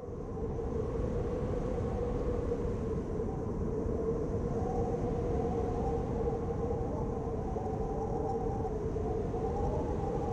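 A steady, even rumble with a held hum through it, like a running vehicle. It starts abruptly out of silence.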